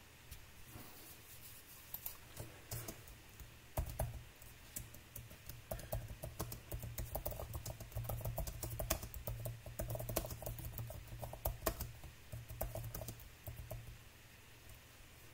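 Typing on a computer keyboard: keys tapped in quick runs, thickest in the middle and thinning out near the end.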